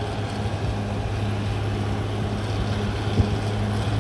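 CAT D6R XL bulldozer's diesel engine running steadily under work, with a single sharp knock about three seconds in.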